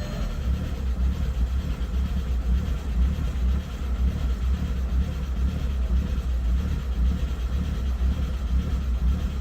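A 2003 VW Jetta's 1.8T turbocharged four-cylinder engine (AWP) idling with an uneven low rumble. The owner calls it a rough idle, still there after a rebuild that included a new head gasket, timing belt, vacuum lines and intake manifold gasket.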